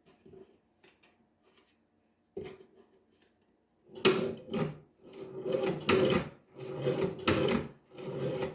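Leather shoe-patcher sewing machine stitching: faint clicks at first, then from about halfway a run of about seven loud clunking strokes, one roughly every half second, as the needle bar cycles through each stitch.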